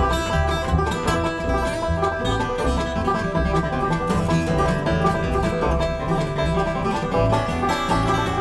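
Bluegrass string band playing live: banjo picking over acoustic guitar and mandolin, with upright bass pulsing underneath.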